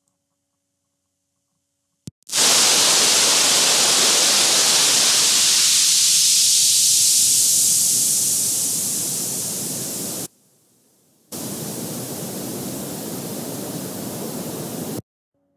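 Loud, even hiss like electronic static, switching on with a click about two seconds in, dropping out for about a second near the ten-second mark, then resuming and cutting off abruptly near the end.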